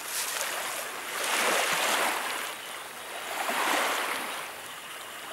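Small sea waves washing onto a pebble beach, two swells of hiss rising and falling about two seconds apart.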